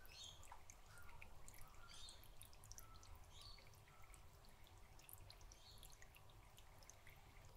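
Near silence: faint dripping water with scattered tiny ticks, and a few faint high bird chirps behind it.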